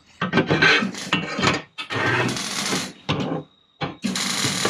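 A steel frame bar sliding and scraping on a wooden workbench as it is pushed into position by hand, in several separate strokes with small knocks. The two longest scrapes come about two and four seconds in.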